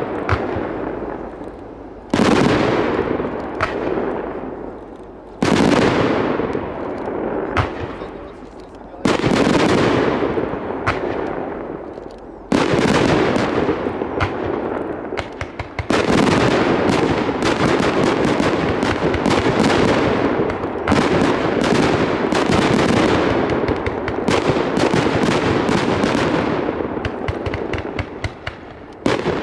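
Fireworks display: aerial shells bursting with sudden loud bangs every few seconds, each trailing off in a fading crackle. From about halfway on the bursts come thick and fast and the crackling runs on almost without a break, easing near the end before one more loud burst.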